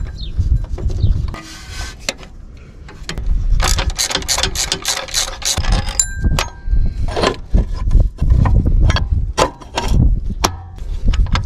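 Hand ratchet clicking in quick runs while the timing-belt tensioner's lower bolt is backed out, with scattered metal clicks and knocks of the tool against the bracket. The densest run of ratcheting comes about a third of the way in.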